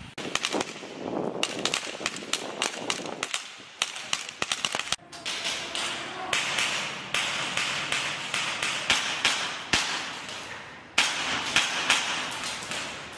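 Rifle fire: many sharp shots in quick, irregular strings, with echo ringing between them.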